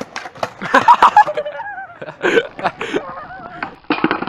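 A skateboard clattering and knocking on concrete, a series of sharp knocks with the loudest cluster about a second in, mixed with short shouts from people.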